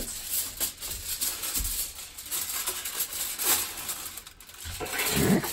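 Aluminum foil being pulled off the roll and crinkled and pressed over a metal baking pan, a run of irregular crackling and rustling.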